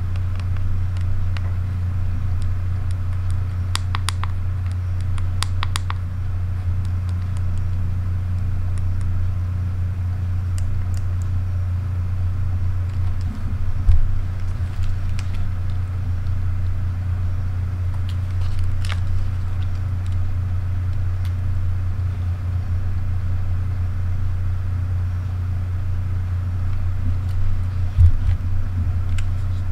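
Steady low hum, with small clusters of sharp clicks from the buttons and dials of a Fujifilm X-T30 and a Sony RX1R II being handled. There is a short knock about halfway through and another near the end.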